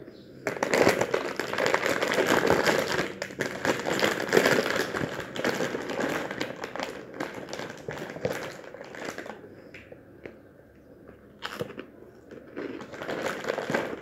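Plastic snack-chip bag crinkling as a hand opens it and rummages inside. Loud from about half a second in, it eases off after about ten seconds and picks up again near the end.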